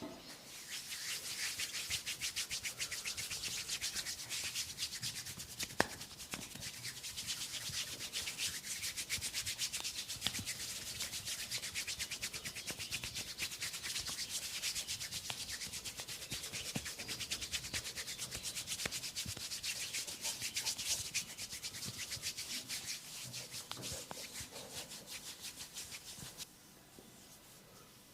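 Brisk massage rubbing on skin: a fast, steady scrubbing rhythm of many strokes a second that stops about two seconds before the end. One sharp click about six seconds in.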